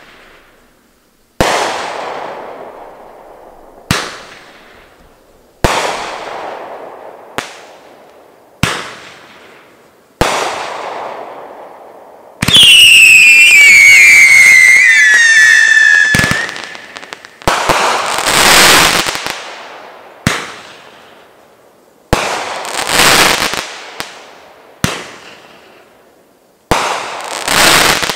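Great Grizzly Alpha 500-gram fireworks cake firing its shots, each a sharp bang with a fading crackle, every second or two. About twelve seconds in, a volley of whistling tails screams for about four seconds, falling in pitch. Later shots break into spells of dense crackling.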